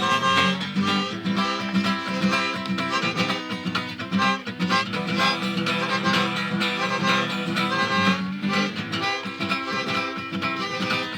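Acoustic guitar playing an instrumental passage between sung verses of a song.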